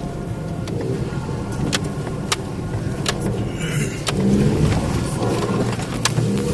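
Subaru Forester XT's turbocharged flat-four engine running under load on an off-road hill climb, with scattered sharp knocks from the rough ground. A brief hiss comes just before the engine gets louder, a little over halfway through.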